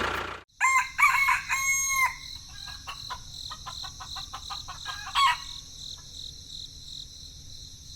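Birds calling over a steady high-pitched drone: a cluster of calls starts about half a second in, after a brief silence, followed by scattered short calls and one more call about five seconds in.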